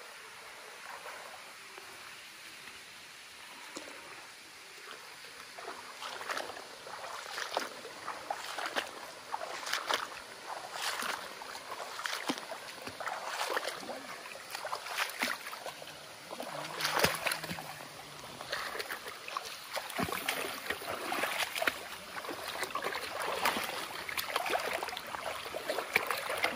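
Shallow muddy water splashing and sloshing as a wading man works a cast net and gropes under it with his hands. Fairly quiet at first, then irregular splashes from about six seconds in.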